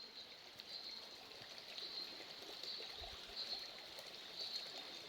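Faint woodland ambience: a steady high-pitched insect buzz that swells and fades about once a second, over a soft wash of background noise.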